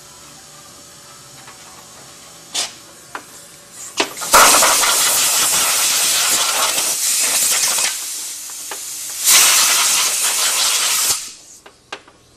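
Bench belt sander running with the edge of a clear plastic aircraft wingtip navigation-light lens held against the belt: a loud sanding noise in two spells, about four seconds and then about two, the second stopping abruptly. A few light clicks of the lens being handled come first.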